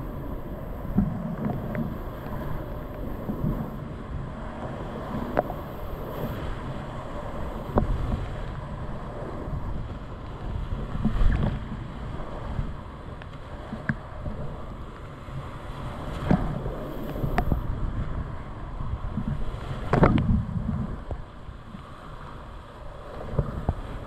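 Rushing whitewater of a river in flood, heard from a kayak running the rapid, with a low buffeting rumble on the microphone. Now and then a sharp splash or knock from paddle strokes and waves hitting the boat, the strongest near the end.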